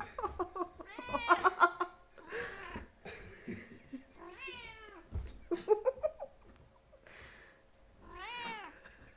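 Kittens meowing repeatedly: a string of high, rising-and-falling meows, several overlapping about a second in, then single calls spaced through the rest.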